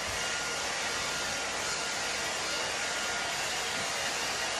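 Handheld pet hair dryer blowing steadily into a Labrador's ear, an even airy noise.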